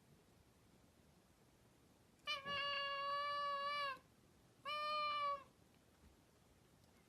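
Cat meowing twice: a long call held at a nearly level pitch for almost two seconds, then a shorter one.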